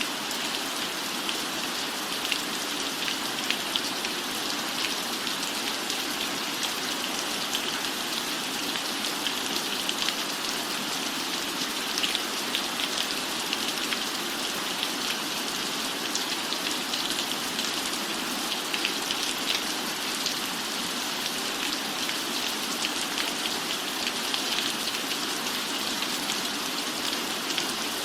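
Steady rain falling, with many small drop hits ticking through a constant hiss.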